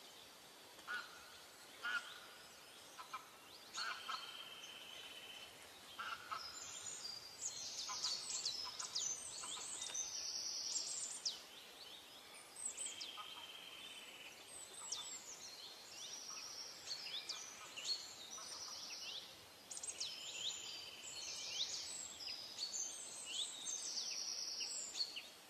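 Small birds singing and calling: many quick whistled notes that sweep downward, mixed with short buzzy trills, sparse at first and then an almost unbroken chorus.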